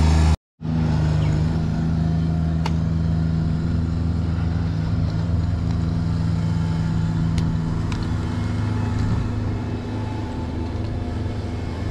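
Mini skid steer's engine running steadily; around eight seconds in one part of its note drops away and the sound eases slightly. The sound cuts out completely for a moment about half a second in.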